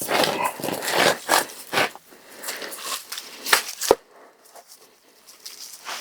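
Dry leaves and small sticks rustling and crunching as they are handled. A single sharp crack comes about four seconds in, and then it goes much quieter.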